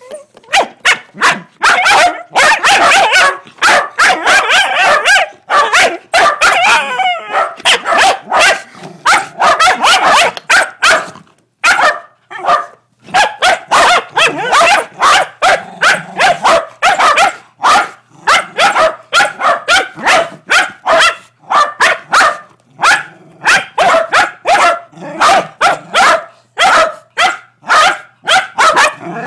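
Two Shetland sheepdogs barking loudly in quick, almost nonstop volleys, with a brief lull about twelve seconds in. It is excited play barking at a cable popping out of the floor.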